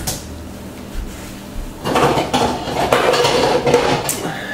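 A clink of the spatula set down at the start, then a pan of thick cheese sauce with ground beef and pasta at a boil, bubbling and popping with a dense crackle for the last couple of seconds.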